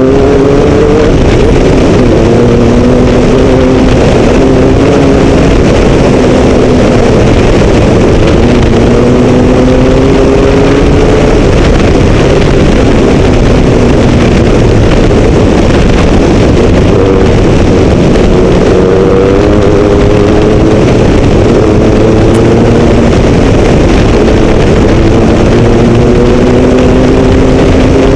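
Mitsubishi Pajero MPR13 rally-raid car's engine heard on board at speed, its pitch climbing and then dropping back several times as it pulls through the gears. Steady, loud wind and gravel road noise sit under it.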